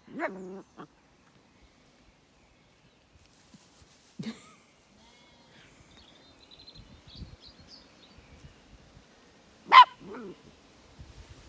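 A puppy barking at an alpaca: a few short, separate barks with long gaps, the loudest and sharpest near the end.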